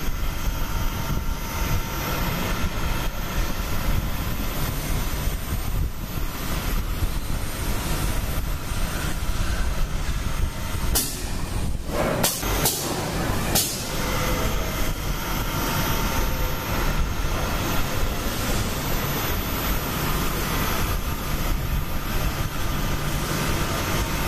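Automated foam-gasket dispensing machine running steadily as it lays a foam bead, a constant machine noise with a faint steady whine. About halfway through come three short sharp bursts.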